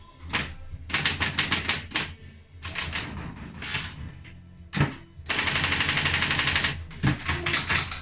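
A 1963 Triumph Electric 31 electric typewriter being typed on: quick bursts of sharp keystroke strikes. Just before five seconds in comes a single heavy thump, then a rapid, even run of clicks for about a second and a half, then more keystrokes.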